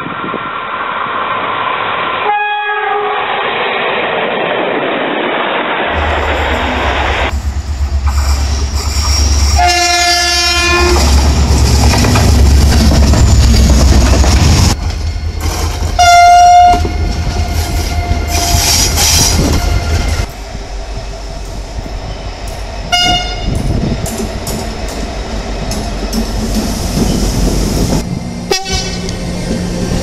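Train horns sounding as trains approach and pass: a short horn chord about two seconds in, then a long blast of over a second around ten seconds in, followed by three shorter toots, as a Renfe high-speed train runs by close with the rumble and clatter of its passing.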